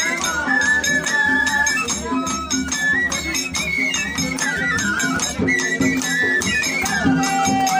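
Music: a song with a singing voice over steady, rhythmic rattling percussion.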